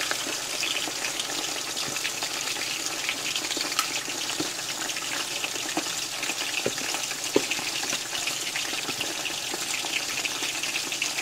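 Chicken wings deep-frying in hot oil in a cast iron skillet: a steady, bubbling sizzle with scattered small pops.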